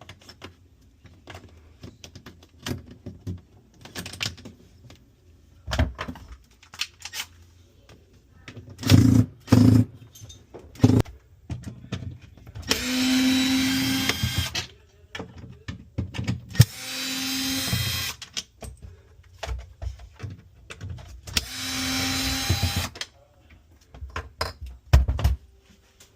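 A power drill running in three bursts of about two seconds each, a steady motor whine with a hiss over it. Clicks and knocks in between, the loudest a cluster of knocks about nine seconds in.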